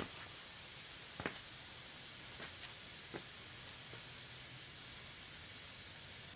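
Air hissing steadily out of a car tire's valve as the tire is let down flat for an inflator test, with a few faint clicks.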